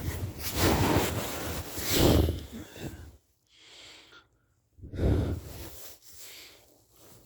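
A person snoring in their sleep. A long snore fills the first three seconds, a quiet gap follows, and another snore comes about five seconds in.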